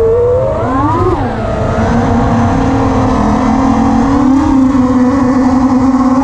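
FPV quadcopter's brushless motors (Armattan Oomph 2203, 2300 kV) spinning props, a loud pitched whine that swoops up and down with the throttle for about the first second, then holds a steadier, lower tone with small wobbles.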